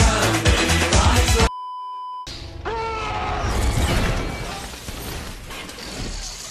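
Pop music cuts off abruptly about a second and a half in, followed by a short steady electronic beep. Then come sci-fi film sound effects: a brief falling electronic sweep and a hiss that slowly fades, as vapour spills from a starship corridor door.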